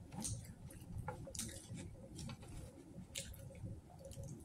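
Close-miked chewing of thin-crust supreme pizza, with wet mouth clicks about once a second.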